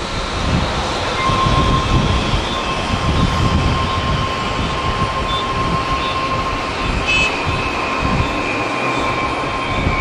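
Turbofan engines of a Japan Airlines Boeing 777 on final approach: a steady rushing noise with a high whine that comes in about a second in, and a higher tone that slides slightly down in pitch near the end. Gusty wind rumbles on the microphone underneath.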